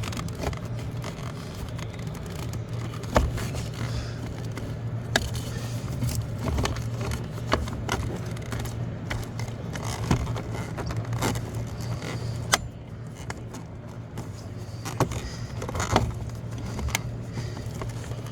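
Irregular plastic clicks and scrapes as hands work to unclip the wiring connector from a car's heater blower motor, over a steady low hum.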